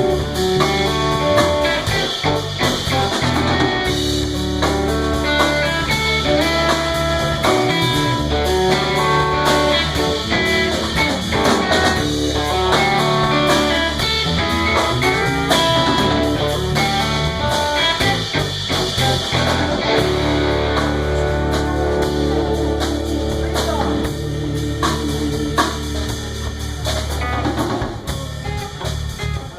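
Live band playing a blues tune: guitar lines over held bass notes and a drum kit.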